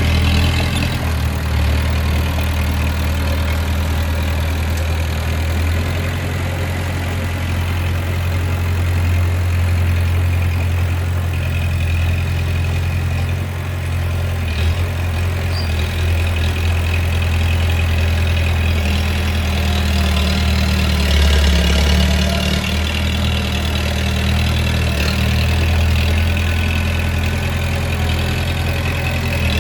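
Bulldozer's diesel engine running steadily, a deep low drone that shifts a little in level as the machine works.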